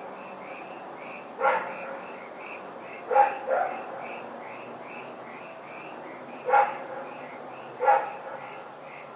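A dog barking in single sharp barks at uneven intervals, five in all, two of them in quick succession about three seconds in. A faint high chirping repeats steadily about three times a second behind the barks.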